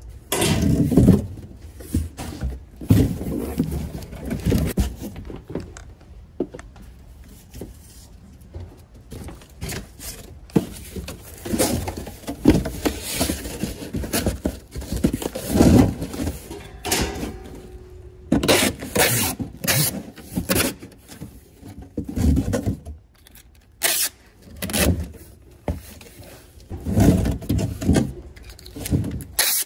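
Cardboard boxes being shifted and handled by hand: irregular scrapes, rustles and knocks in uneven bursts.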